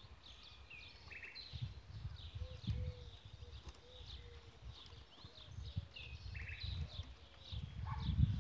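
Small wild birds singing outdoors, a steady run of short, high chirps and quick falling notes, over irregular low rumbles and thumps.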